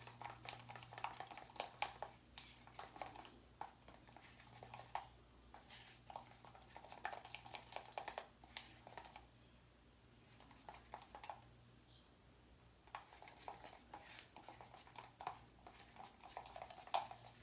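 Faint, scattered clinks and scrapes of a utensil against a bowl as melted white chocolate is stirred, with a quieter stretch in the middle, over a low steady hum.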